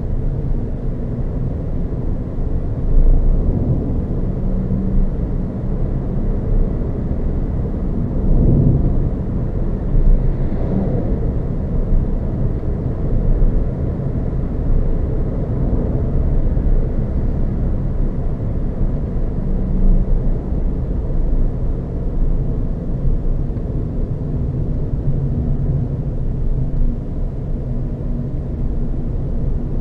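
Renault Zoe electric car driving on the road: a steady low rumble of tyre and wind noise, with no combustion-engine sound.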